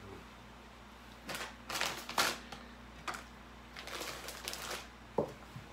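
Ingredient packets and a stainless steel mixing bowl being handled: several short rustling, scraping bursts, then a single sharp knock near the end.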